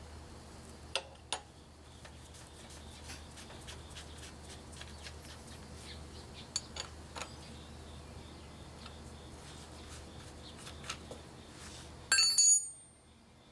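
Honda Super Cub 50's small single-cylinder engine idling with a light metallic ticking, the valve-tappet noise the owner sets out to cure by adjusting the tappets. Near the end a brief loud clatter, and then the engine sound stops.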